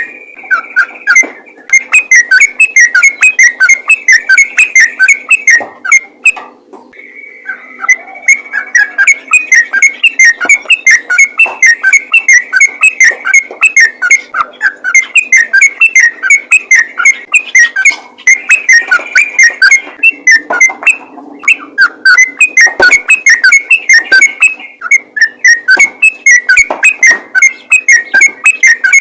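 Yellow-vented bulbul (trucukan) singing loudly in a rapid, unbroken run of quick whistled notes, the fast 'ropel' song used as a lure call. The song breaks off briefly about six seconds in and again around twenty seconds.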